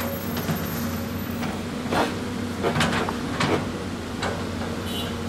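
CAT 320D hydraulic excavator's diesel engine running steadily while its steel bucket digs into rocky soil, with several short clanks and scrapes of bucket against rock, the loudest about two to three and a half seconds in.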